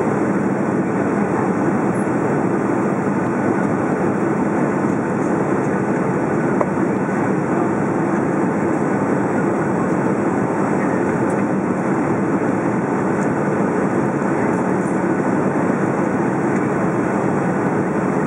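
Steady cabin noise of a Boeing 757 descending to land, heard from a window seat over the wing: the jet engines and the rush of air over the fuselage make an even, unbroken roar.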